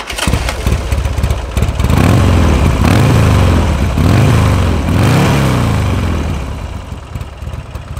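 2004 Buell Firebolt XB9R's Harley-Davidson V-twin running at idle. It is revved three times in quick succession around the middle, then drops back to idle.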